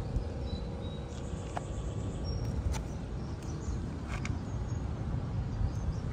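Outdoor ambience: a steady low rumble with a few faint, scattered bird chirps and some light clicks.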